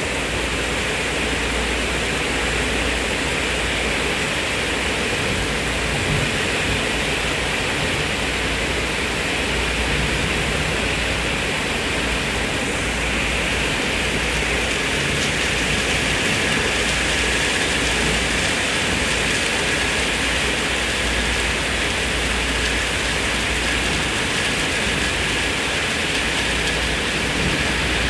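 Steady heavy rain falling, a continuous even hiss.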